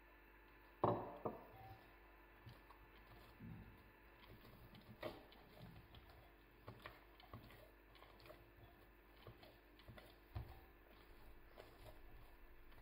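Hands kneading soft, oil-slicked yeast dough in a glass bowl: quiet squelching and pressing with scattered soft knocks, the loudest a thump about a second in. This is the stage where oil is being worked into the dough.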